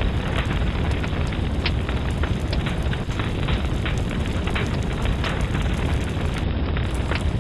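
Wood fire crackling in a fireplace: a steady low rumble of flames with frequent small, irregular pops and snaps.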